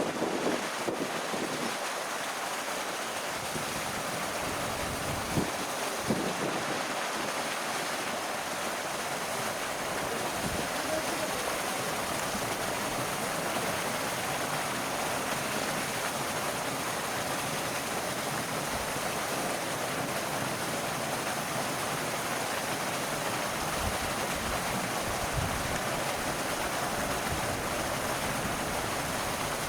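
Steady rushing noise throughout, with a few brief low bumps.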